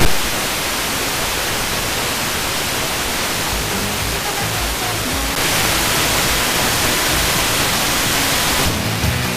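Steady rushing hiss of FM radio static from a software-defined receiver tuned between stations, where wideband interference noise is swamping the band and drowning out distant FM stations. The hiss gets a little louder about halfway through, and faint station audio starts to break through near the end.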